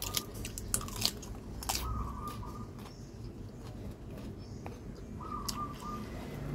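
Close mouth sounds of someone biting and chewing grilled Isan sausage, with scattered wet clicks and smacks.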